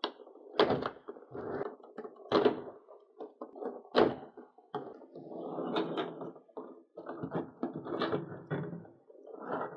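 Thin clear plastic blister tray crackling as it is cut with a small handheld cutter and bent apart by hand, with several sharp cracks, the loudest about four seconds in.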